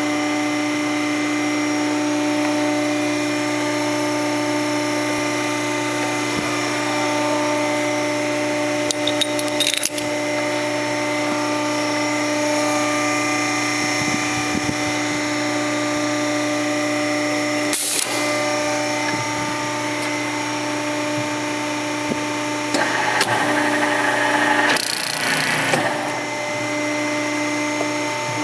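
ATOLI TC-152 servo automatic riveting machine running with a steady motor hum. There are sharp clicks about ten and eighteen seconds in, and near the end a few seconds of harsh, rough noise as the riveting head comes down and works a rivet.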